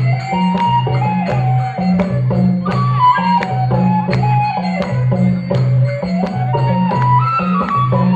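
Nepali folk music for a madal dance. A hand drum beats a steady repeating low rhythm under a melody that steps up and down, with sharp clicks of percussion.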